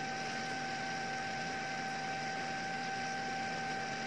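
Philips Lumea Precision Plus IPL hair-removal device switched on and warming up, giving a steady high whine over a soft hiss.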